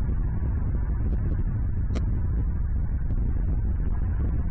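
Steady low outdoor rumble on a nest-cam microphone, with a few faint short ticks about a second and two seconds in.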